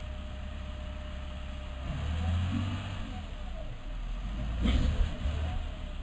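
Crawler bulldozer's diesel engine running and revving, with a short, louder burst of noise about five seconds in.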